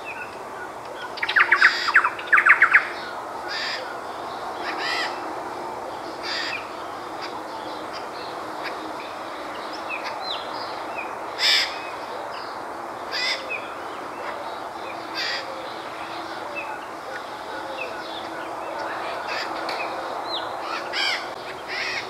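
Wild birds calling in a tree: a loud cluster of rapid calls between about one and three seconds in, then short high chirps every second or two, over steady background noise.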